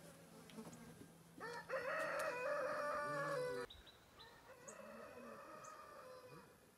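A rooster crowing: one loud crow that rises in about a second and a half in and is cut off suddenly, then a second, fainter crow.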